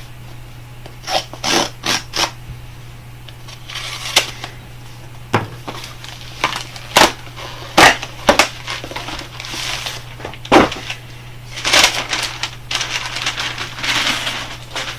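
A cardboard shipping box being opened and unpacked by hand: a string of sharp clicks and knocks with scraping, tearing rasps of tape and cardboard.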